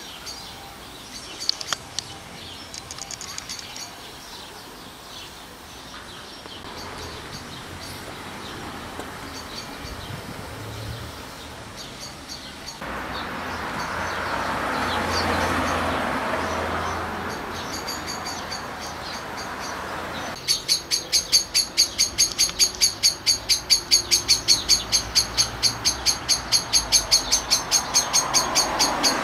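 Birds chirping outdoors. Over the last third a rapid high chirp repeats evenly about four times a second and is the loudest sound. A broad noise swells and fades around the middle.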